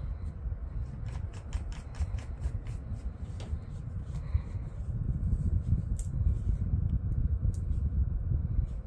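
Small clicks and rattles of a spinning reel being fitted into a fishing rod's reel seat by hand, with a quick run of ticks in the first few seconds and a couple of sharper clicks later. Under them runs a low rumble that grows louder about halfway through.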